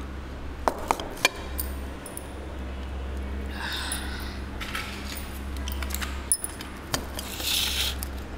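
A ceramic plate clinking as it is set down on the table: three sharp clinks in the first second and a half. Soft handling and rustling noises follow, with a couple more light clicks, over a steady low hum.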